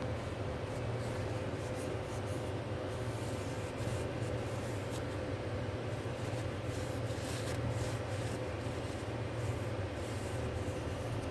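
Steady low mechanical hum with a faint constant whine above it, unchanging throughout.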